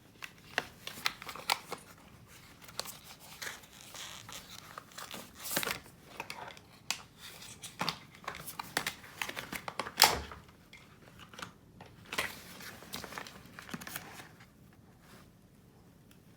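Hands handling and working on small parts: irregular clicks, scrapes and crinkling rustles, with one sharp knock about ten seconds in.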